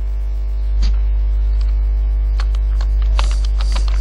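Steady, loud electrical mains hum on the recording, with a few sharp computer keyboard clicks: a single one about a second in and a quick run of them near the end.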